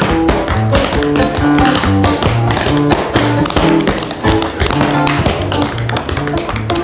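Rapid tapping and stamping of a dancer's boots on a stage floor in a Roma-style footwork dance, over lively guitar-led music.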